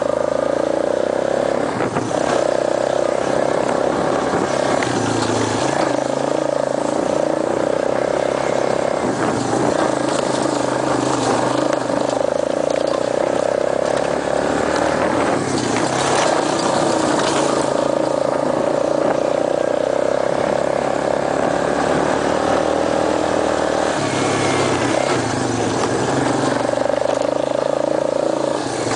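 Small off-road vehicle engine running steadily while being ridden, its note holding level and easing off briefly every few seconds.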